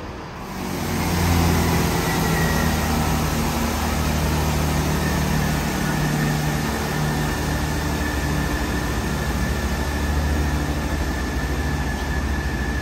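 Class 165 diesel multiple unit's underfloor Perkins diesel engines running steadily, a low throbbing drone that grows louder about a second in, with a faint high whine over it.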